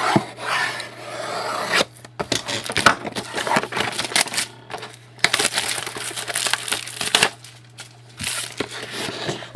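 A hockey card box and its packs being torn open by hand: irregular tearing, crinkling and rubbing of wrapper, cardboard and cards, with short pauses between bursts.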